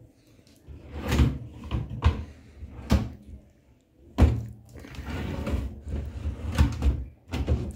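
Kitchen drawers being pulled open and pushed shut, sliding and scraping, with about six sharp knocks as they bang to.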